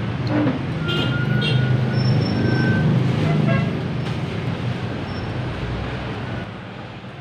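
A motor vehicle passing on the road, its engine growing louder and then fading away towards the end, with a few short high chirps near its loudest point.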